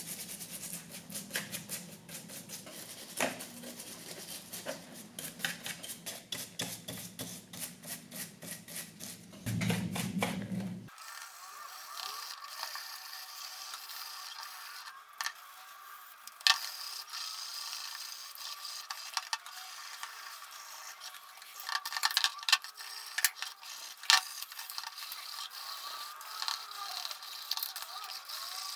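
Hand-tool work on a small model car: scraping and rubbing with many quick clicks and taps. A low hum under the first part stops abruptly about eleven seconds in, after which the scraping goes on more faintly with a few sharper clicks.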